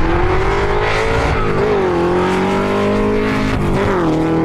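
Race car engine sound effect: a high-revving engine holding a steady note, with brief dips and recoveries in pitch about one and a half seconds in and again near the end.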